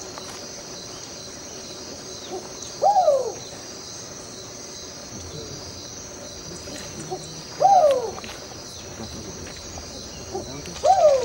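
Owl calling three times, a few seconds apart. Each call is a short note that rises then falls, with a soft short note just before it, over a steady chorus of night insects.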